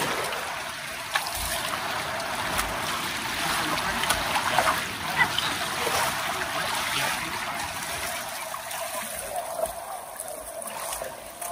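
River water flowing and trickling: a steady, even rush of current.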